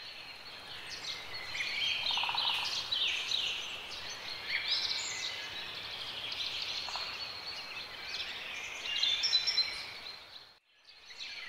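Birds singing outdoors: many quick chirps, trills and short falling whistles overlapping, over a faint steady hiss.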